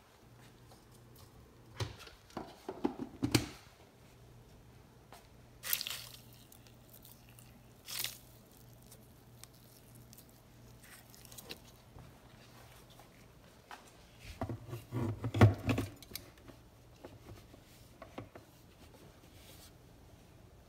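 Handling noises of a stainless-steel mixer jar full of dry spices: short clinks and knocks as the contents are pressed down by hand, with the loudest clatter about fifteen seconds in, when the jar is set onto the grinder base. A faint low hum runs underneath.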